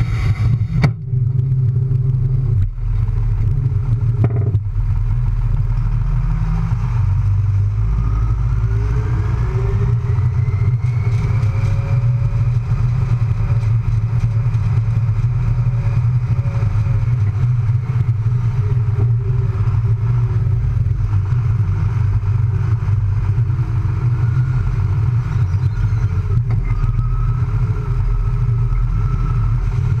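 Farm tractor's diesel engine running under load close to the microphone as its front loader pushes a heap of poultry litter, a heavy steady low rumble. A whine rises in pitch about eight to twelve seconds in as the engine or hydraulics work harder.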